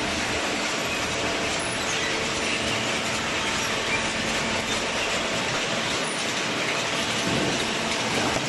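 Hydraulic waste paper baler running: a steady mechanical noise with a few faint steady tones under it.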